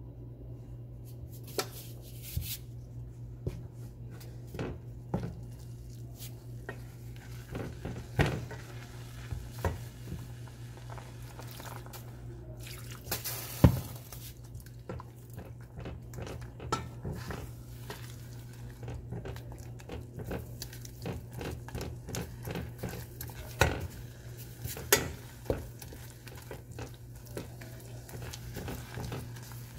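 Wooden spatula stirring a thick flour paste in a stainless steel saucepan, with irregular knocks and scrapes against the pan and squelching of the paste; the loudest knock comes about halfway through.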